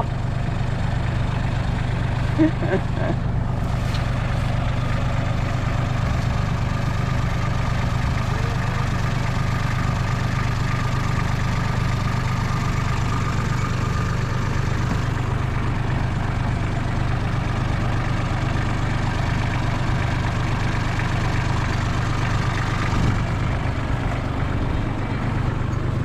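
Compact four-wheel-drive farm tractor's engine running steadily at an even, low speed, a constant hum.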